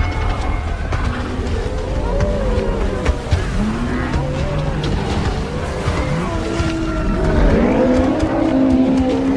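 Animal stampede sound effect: a steady low rumble of a running herd under many overlapping animal calls that rise and fall, growing louder about three quarters of the way through.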